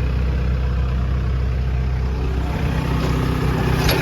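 Diesel engine of a JCB JS160 NLC tracked excavator idling steadily.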